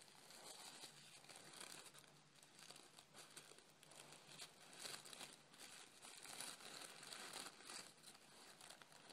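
Faint, irregular crinkling and rustling of tissue paper as hands unwrap a small telescope mirror from it.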